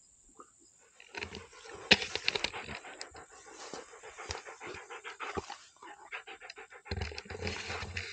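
Rottweiler panting hard close to the microphone, starting about a second in, with rapid clicks and rustling from tall grass around it.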